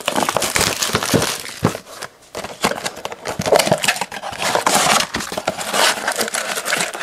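Plastic wrapping crinkling and cardboard being handled, a steady run of rustles and small clicks with a brief lull about two seconds in.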